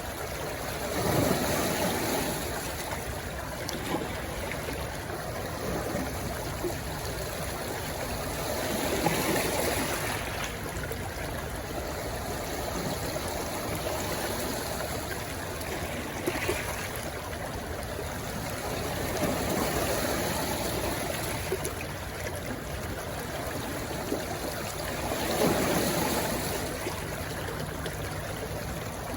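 Rushing stream flowing into the sea, a steady wash of running water that swells louder four times.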